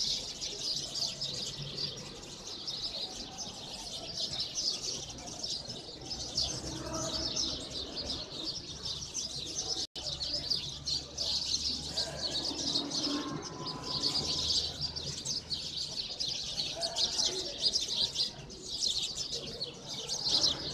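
Dense, continuous chorus of many sparrows chirping together, a large flock settled in a communal roost.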